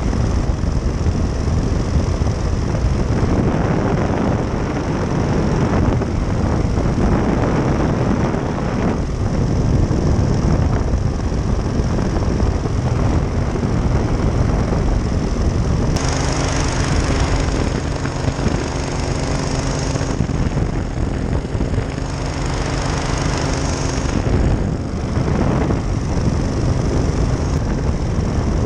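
Powered parachute's engine and pusher propeller running steadily in flight, mixed with heavy wind noise. The sound changes abruptly about halfway through, taking on a steadier hum, and changes again a few seconds later.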